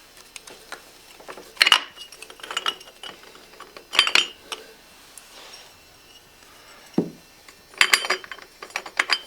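Metal clinking and rattling in several short bursts as the clutch basket and its surrounding metal parts and tools are handled while checking the basket for looseness, the loudest bursts about two seconds in, at four seconds, and near the end.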